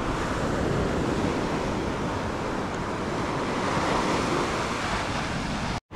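Small surf washing steadily onto a sandy beach, with some wind on the microphone. The sound breaks off briefly near the end.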